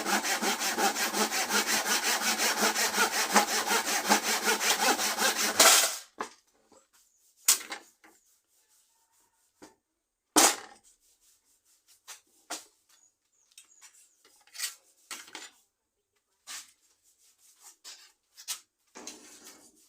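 Hand saw cutting through a piece of wood in quick, even back-and-forth strokes, which stop suddenly about six seconds in. After that come scattered light knocks and clicks of wood and tools being handled.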